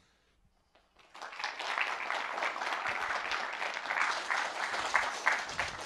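Audience applauding, starting about a second in after a brief hush.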